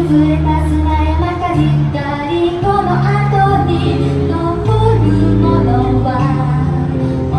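Live music: a woman singing a melody over bass accompaniment, with sustained low bass notes changing every second or so.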